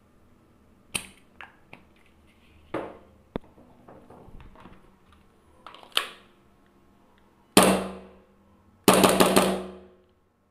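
Airsoft Hi-capa gas pistol being handled: scattered sharp clicks and clacks, then two loud bursts near the end, the second a rapid rattle lasting about a second.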